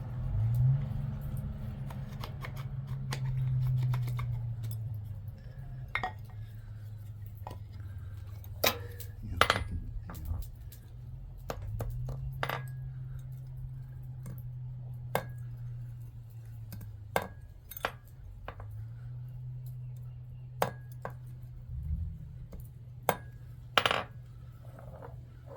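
Light, irregular metal-on-metal taps, a small hammer striking metal, each click with a short ringing note, about a dozen from a few seconds in. A steady low hum runs underneath.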